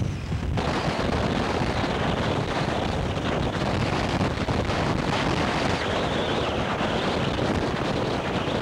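Hurricane wind blasting the camcorder microphone: a steady, loud rush of wind noise that turns fuller and brighter about half a second in.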